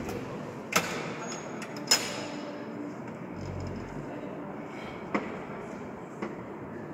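Low murmur of voices and shuffling in a large echoing church, with a few sharp knocks or clicks. The loudest come about a second and two seconds in, and softer ones follow later.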